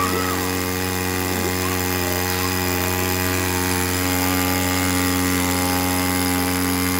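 Floating pontoon water pump running steadily at a constant speed, with the rushing hiss of the strong water jet it drives through a fire hose.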